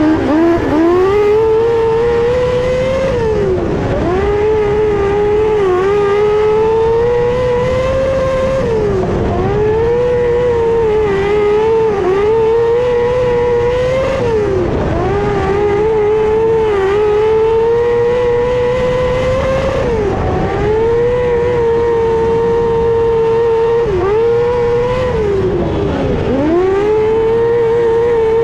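600cc micro sprint's motorcycle engine at racing revs, heard from the cockpit, its pitch dropping sharply as the throttle is lifted for each corner and climbing straight back on exit, about every three to six seconds.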